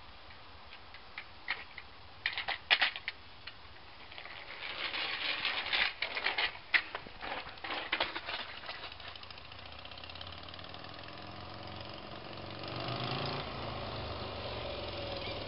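Scattered clicks and scraping, then the 2004 Buell XB12R Firebolt's V-twin engine approaching, its low hum growing steadily louder from about ten seconds in.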